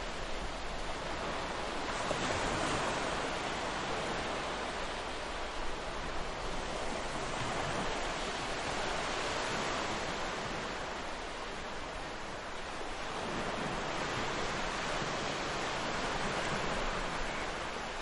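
Ocean surf washing onto a beach: a steady hiss of breaking waves that swells and eases slowly, about three times.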